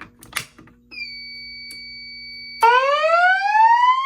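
A few clicks, then a steady high electronic beep from the fire alarm panel, and about two and a half seconds in the voice evacuation system's alarm tone starts: a loud whoop rising in pitch, sounding twice. This is the alarm signal that comes before the recorded evacuation message.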